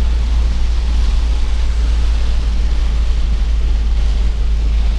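Steady low rumble and hiss heard from inside a car's cabin while it drives on a rain-soaked road.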